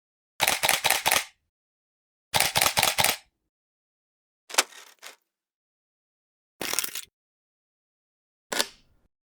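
Camera shutters firing: two rapid bursts of about five shutter clicks each, then three shorter releases of one or two clicks, each group separated by silence.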